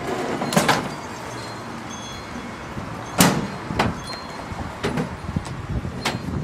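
A scrap steel pipe knocking against a pickup truck's bed as it is pushed in. About three seconds in, the Ford pickup's tailgate is slammed shut, the loudest knock, followed by a few lighter knocks.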